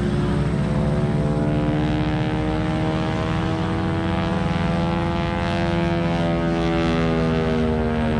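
Propeller-driven aerobatic airplane's engine droning through a loop, its pitch slowly shifting as the plane maneuvers.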